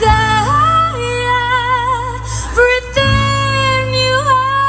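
Live band amplified through PA speakers: a woman sings drawn-out notes with vibrato over acoustic guitar accompaniment, holding one long note through the second half.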